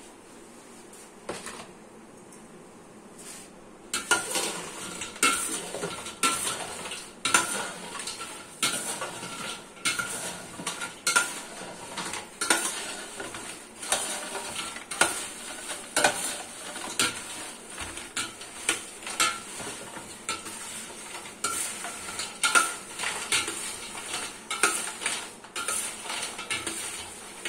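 Crisp fried potato fries tossed by hand in a stainless steel bowl to coat them in spice: repeated irregular clattering and scraping of the fries against the metal, with a light ring from the bowl. It starts about four seconds in.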